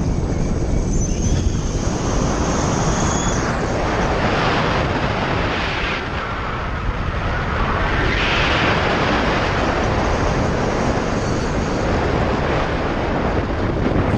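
Wind rushing and buffeting over the camera microphone of a powered paraglider gliding in to land, swelling twice in the middle. No clear engine note stands out.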